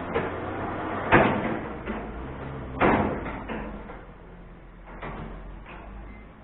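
Two loud bangs about a second and a half apart, then a few fainter knocks, over a low engine hum that fades.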